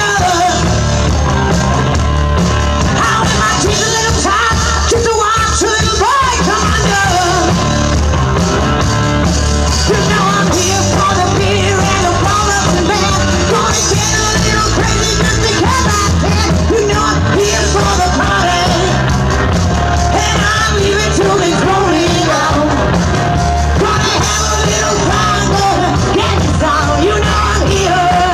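Live rock band playing: a woman sings lead over electric guitar, bass guitar and drums with a steady beat.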